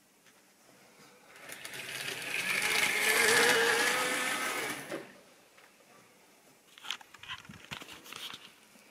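Model railway locomotive's small electric motor whining as the train runs on the track. It swells over a couple of seconds and fades away. Near the end come a few sharp clicks and knocks as the camera is handled and moved.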